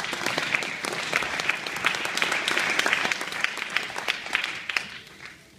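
Audience applauding, a dense patter of irregular claps that dies away near the end.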